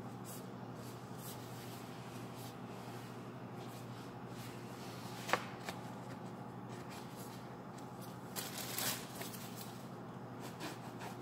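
Light handling noises at a kitchen counter over a steady low hum: hands in disposable plastic gloves rustling as they handle a bread roll, with scattered small clicks. There is one sharp click about halfway through and a short burst of rustling a little later.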